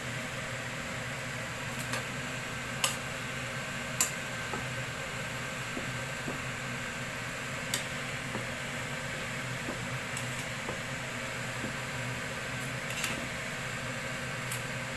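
Vegetables stir-frying in a pan: a steady hiss under a spatula working through the cabbage, with four sharp taps of the spatula against the pan.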